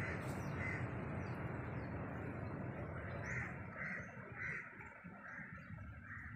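A bird calling repeatedly: about six short calls, one early and the rest coming every half second or so from about three seconds in, over a steady outdoor background hiss.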